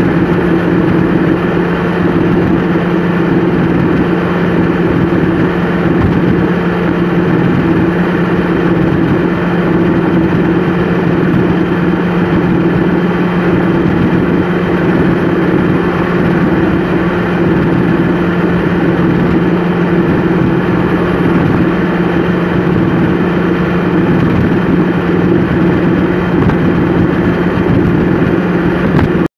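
Vehicle engine and tyres heard from inside the cab while cruising at a steady highway speed: a constant low drone that neither rises nor falls, over steady road noise.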